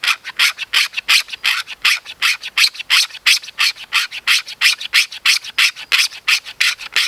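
A sharp blade spine scraping an ABS plastic tent stake in quick rasping strokes, about four a second, shaving off plastic curls for tinder. The scraping stops suddenly near the end.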